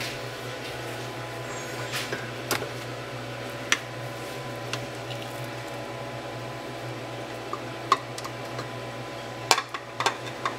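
A spatula scraping soft butter out of a tub into a stainless steel mixing bowl, with a few scattered light clicks and knocks of utensil on tub and bowl, more of them near the end. A steady low hum runs underneath.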